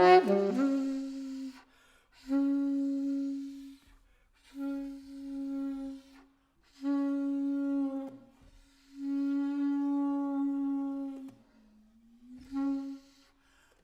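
Solo saxophone, opening with a loud burst of crowded high overtones, then sounding the same long held note about five times with short breath pauses between. Near the end a note slides up from below into that pitch.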